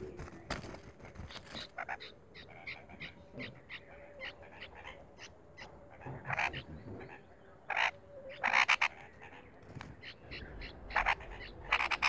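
Bulbuls calling at a nest where an adult is tending its nestlings: a rapid series of short, high, sharp calls at about three a second, then louder, harsher call bursts about six seconds in, around eight and a half seconds, and again near the end.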